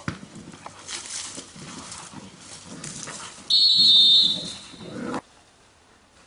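Belgian Malinois growling and scuffling while it grips a decoy's bite suit. About three and a half seconds in, a loud, shrill, steady high tone cuts in for under a second. The sound drops off abruptly a little after five seconds.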